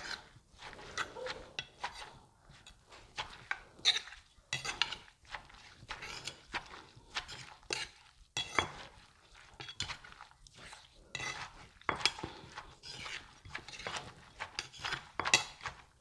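Pestle and spoon gently pounding and tossing papaya salad in a mortar: a string of irregular light knocks and clinks, about one or two a second.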